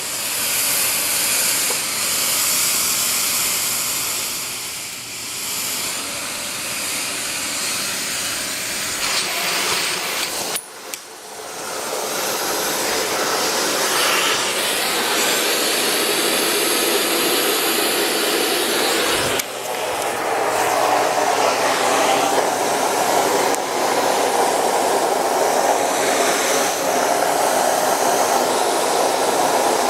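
Astro Vac central vacuum drawing air through its 30-foot hose, a steady loud rush of suction. It drops out briefly about eleven seconds in, then comes back louder and fuller for the last ten seconds.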